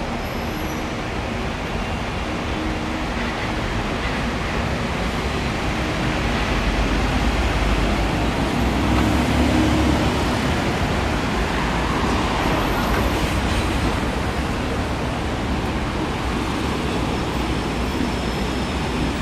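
Road traffic under a flyover, with a KMB bus's engine rumble drawing near and swelling to its loudest about halfway through as it pulls in to the stop, then settling.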